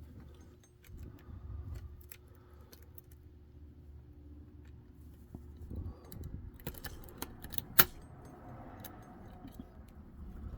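Metal lock-picking tools worked in the wafer core of a Reese Towpower coupler lock: scattered small metallic clicks and scraping rattles, with one sharp, louder click about eight seconds in.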